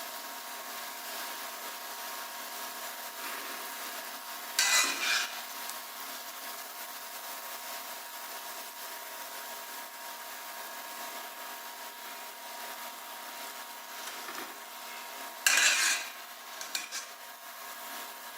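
Kitchen handling noises: two short scraping rubs, about eleven seconds apart, over a steady faint hum.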